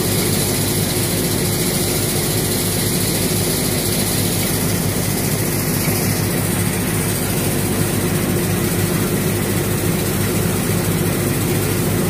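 Tractor-driven threshing machine running steadily, threshing fenugreek (methi) and delivering the seed into a trolley: a loud, even engine-and-machine drone.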